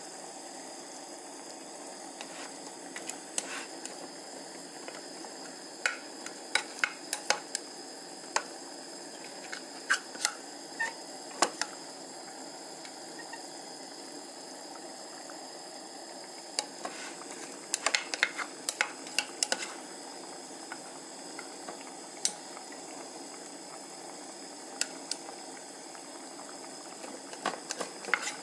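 Broth simmering in an aluminium pan with a steady bubbling hiss, broken by clusters of sharp clicks and taps as a plastic rice paddle scoops rice out of a rice cooker's inner pot.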